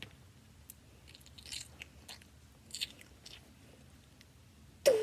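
Faint rustling, scraping and small clicks of plastic toys being handled and swapped on a bed, with a short whining cry right at the end.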